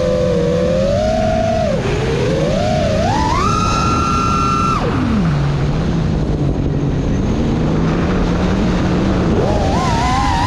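FPV quadcopter's brushless motors (Emax Eco II 2306 1700KV on 6S) with tri-blade props whining. The pitch rises and falls with the throttle, climbs to a high steady note, then drops sharply about five seconds in to a low hum, and climbs again near the end.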